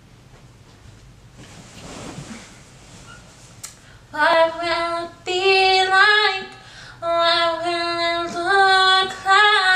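A woman singing unaccompanied: short phrases of long held notes that start about four seconds in, after a soft rustle.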